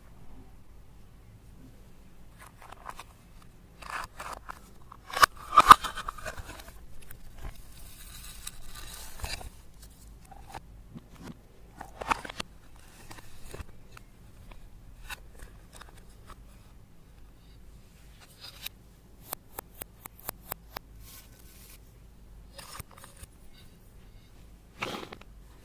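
Slime with crushed eyeshadow, makeup pieces and glitter being worked by hand: irregular sticky clicks, crackles and scrapes, loudest about five to six seconds in and again briefly near the end.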